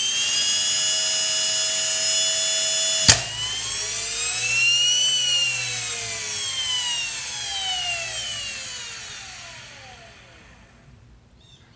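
The Ridgid 18V finish nailer's drive mechanism, a brushed DC motor spinning a flywheel through a belt, whining at speed on 12 volts. A single sharp snap about three seconds in as the solenoid fires the clutch; the whine then climbs briefly and falls away as the flywheel coasts down.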